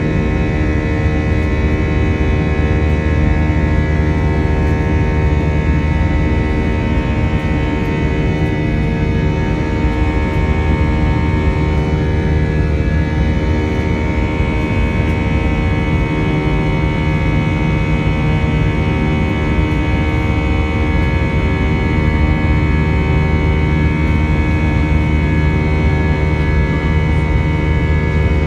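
Airliner cabin noise in the climb after takeoff: the jet engines' loud, steady drone heard from inside the cabin, with many steady humming tones over it.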